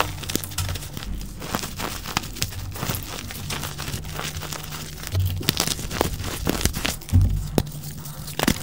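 Soft gym chalk blocks crushed and crumbled between fingers, giving a rapid, irregular run of small crunches and crackles.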